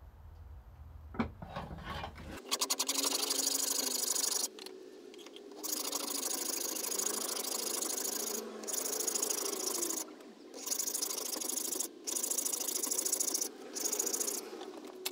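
Hand file scraping along the edge of a small wooden part, cutting a chamfer. It goes in runs of quick back-and-forth strokes that start about two seconds in, with short pauses between runs.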